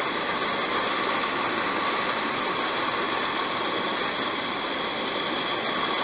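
Steady rushing of river water, an even hiss with no separate splashes or knocks.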